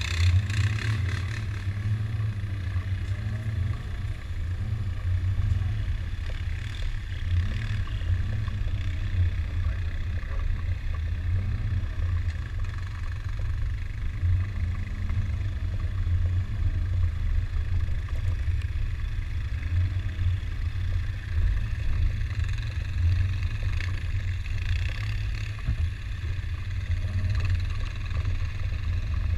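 Land Rover Discovery 2 driving slowly along a rutted dirt trail, its engine and drivetrain giving a steady low rumble.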